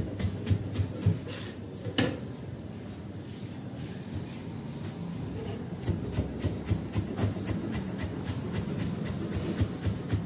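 Kitchen knife chopping green stalks on a wooden cutting board in rapid strokes, about five a second. The chopping pauses for a few seconds in the first half and picks up again for the second half. A faint steady high whine runs under most of it.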